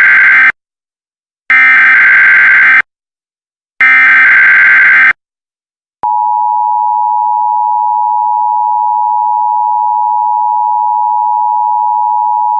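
Emergency Alert System SAME data bursts, three in a row with short silent gaps between them, the first already under way. About six seconds in, the steady two-tone EAS attention signal starts and holds.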